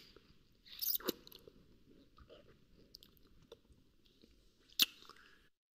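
People kissing: a few short, wet lip smacks, a pair about a second in and a louder single one near the end, then the sound cuts out suddenly.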